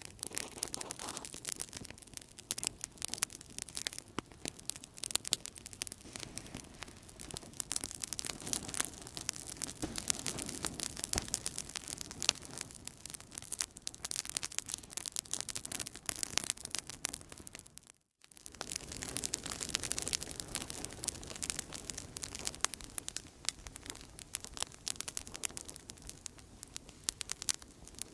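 Outdoor campfire burning with steady, dense crackling and popping over a soft hiss. It cuts out for a moment about two-thirds of the way through, then carries on.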